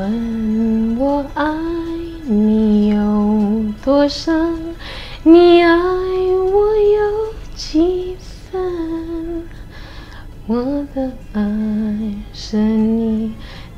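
A woman singing a slow melody in long held notes, some with vibrato.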